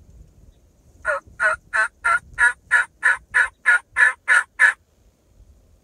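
A run of about twelve evenly spaced turkey yelps, roughly three a second, loud and close, starting about a second in and stopping shortly before the end.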